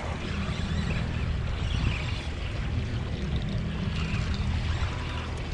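Boat's motor running steadily under way, with water washing against the hull.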